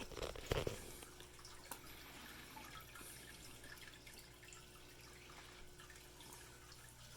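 Quiet room tone with a faint steady hum, broken by a few soft ticks and knocks, the loudest about half a second in.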